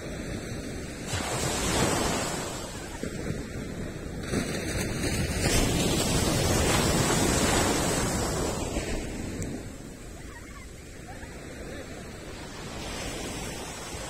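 Ocean waves breaking on a sandy beach: a swell of surf about two seconds in, then a bigger, longer wash from about four to eight seconds in that eases off and builds again near the end.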